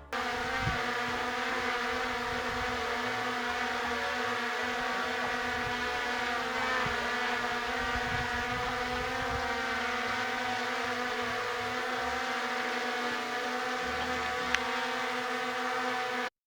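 Small consumer quadcopter drone hovering, its propellers making a steady, unchanging buzzing hum.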